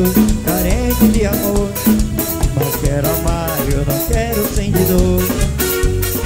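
Instrumental break of a band's dance song: a brass melody over drum kit and percussion, with a steady beat and no vocals.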